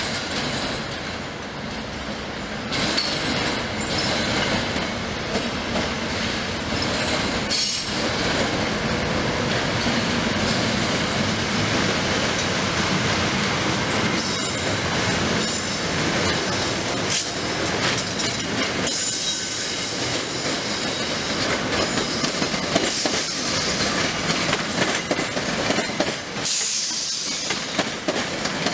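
SEPTA Silverliner IV electric multiple-unit commuter train passing over the switches: steady rolling noise with repeated clicks of wheels crossing rail joints and switch frogs, and wheel squeal in the curves. It grows louder about three seconds in, and a high squeal stands out near the end.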